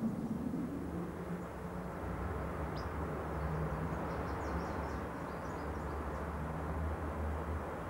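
Steady outdoor ambience: a low rumble of distant traffic, with a few faint bird chirps a few seconds in.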